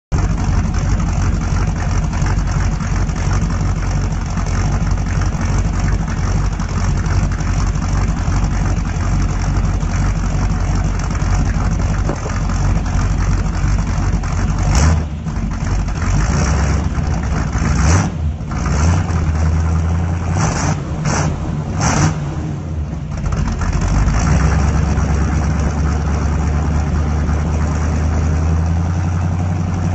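1950 Pontiac's mostly stock 283 small-block V8 running through a single 2.25-inch pipe into one Porter muffler. It idles steadily, then takes a handful of short throttle blips about halfway through, and settles back to idle.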